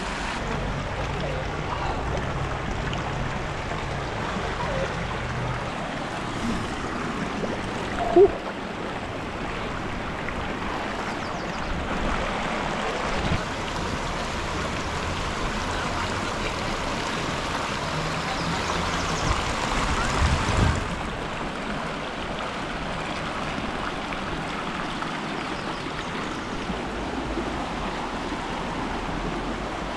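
Shallow creek water rushing and splashing over rocks, a steady rush throughout, louder through the middle and dropping back about twenty-one seconds in. A short sharp sound stands out about eight seconds in.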